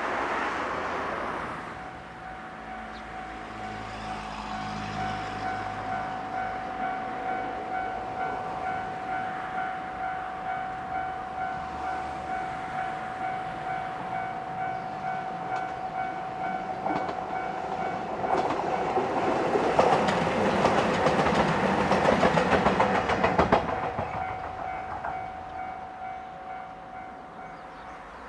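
Level crossing alarm ringing with a steady pulsing tone, about one and a half strokes a second. A diesel train passes through the crossing in the middle of the ringing, its wheels clattering over the rail joints, and the alarm stops near the end.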